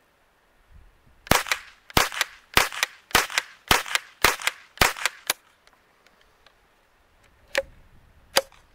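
Henry AR-7 semi-automatic .22 LR rifle firing seven CCI Suppressor 45-grain subsonic rounds in a quick string, one shot about every 0.6 s; the low-powered rounds cycle the action every time. Two sharp clicks follow near the end.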